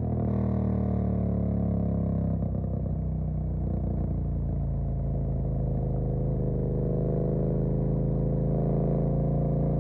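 Suzuki GSX-8S parallel-twin engine running through a Jeskap EVO aftermarket exhaust while riding, the revs easing off slightly over the first few seconds and then building gently again in the second half.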